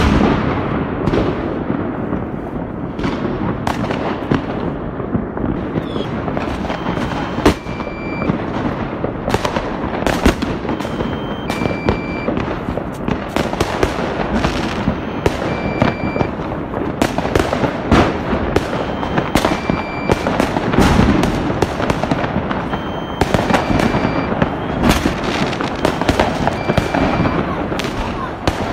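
Fireworks and firecrackers going off all over at once: a dense, continuous crackle of bangs without a pause, with louder booms scattered through it.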